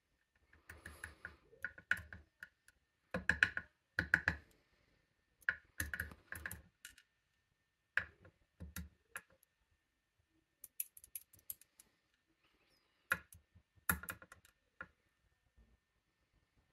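Small metallic clicks and rattles from a disassembled ASSA Guideline lock cylinder and its parts being handled, coming in short irregular clusters with brief pauses between.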